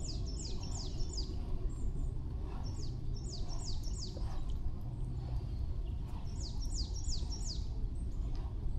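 A small songbird calling in three short runs of about five quick, high notes, each note falling in pitch, over a steady low rush of outdoor noise.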